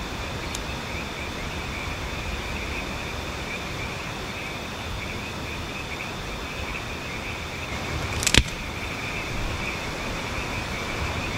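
Steady low hiss of a quiet forest at night, with a faint steady high-pitched hum. About eight seconds in comes one sharp crack from the kindling of a small campfire that has just been lit.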